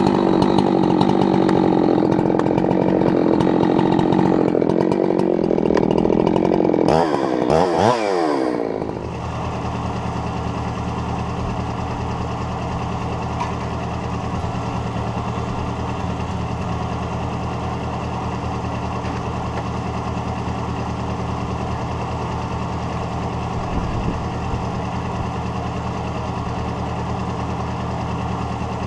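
Husqvarna 372XP two-stroke chainsaw on a homemade chainsaw mill cutting at full throttle through pine, then revving down about seven seconds in with a falling pitch. It idles steadily for the rest.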